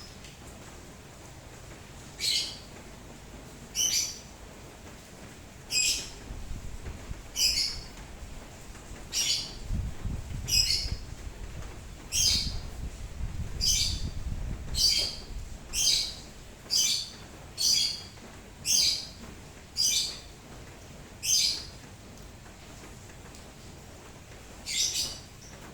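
A bird repeating one short, high chirp about every second or two, over a faint steady hiss of rain.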